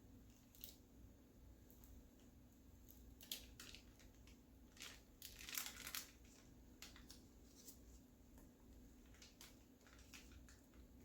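Near silence: room tone with faint scattered clicks and a short crinkly rustle about halfway through.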